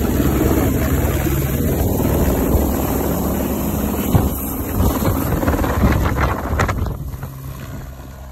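Helicopter running, a steady low engine and rotor drone with wind on the microphone, fading away near the end.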